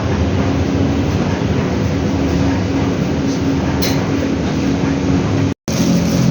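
Commercial LG washing machines running on a test cycle after cleaning and maintenance: a steady mechanical rumble with a low hum. The sound cuts out for an instant near the end.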